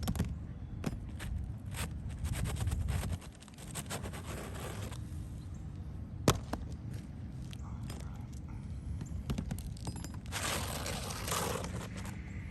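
Scraping, shuffling and scattered taps from hands-on work on a roof, with one sharp knock about six seconds in and a longer scraping rush near the end.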